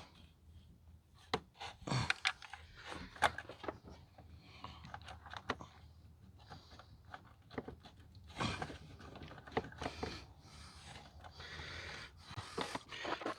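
Hands working a spring clamp onto a rubber upper radiator hose: scattered clicks, scrapes and rubs, with heavy breathing from the effort of a clamp that is too tight to maneuver easily.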